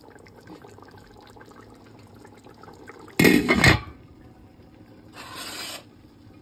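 Faint bubbling of beef simmering in a steel pot, then about three seconds in a loud, brief clatter as a glass lid is set onto the pot. A couple of seconds later comes a shorter, softer scrape as a wooden spatula is laid onto a spoon rest.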